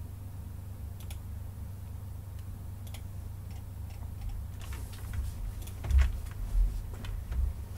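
Computer mouse and keyboard clicks over a low steady hum: a few isolated clicks at first, then quicker clicking and a few dull thumps in the second half.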